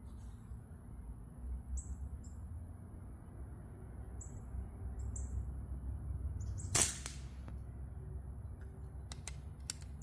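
A single airgun shot about two-thirds of the way through, a sharp report with a short tail. A few light clicks follow near the end.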